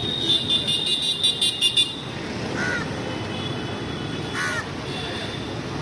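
Street traffic with a vehicle horn honking in a quick run of short beeps for the first two seconds, then crows cawing twice over the traffic noise.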